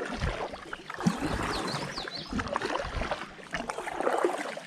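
Water splashing and sloshing around a kayak being paddled, with scattered light knocks against the hull.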